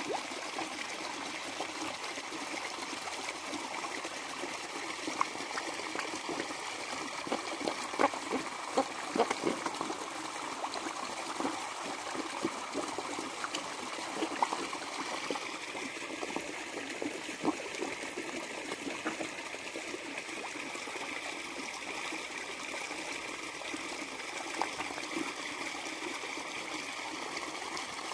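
Koi slurping and sucking floating food pellets at the pond surface, with irregular wet smacking pops that come thickest about eight seconds in, over a steady trickle of running water.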